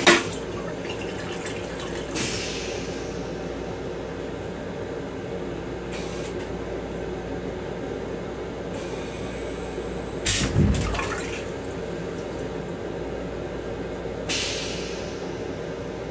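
Metro-North M7 railcar toilet going through its flush cycle. A sharp clunk at the start is followed by short hissing bursts of water into the stainless steel bowl, and a loud whoosh with a deep thud about ten seconds in. A steady train hum runs underneath.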